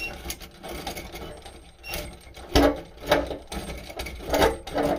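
Mixer-tap fittings and hardware clicking and clinking as they are handled and fitted together: a series of separate sharp clicks, the loudest four in the second half.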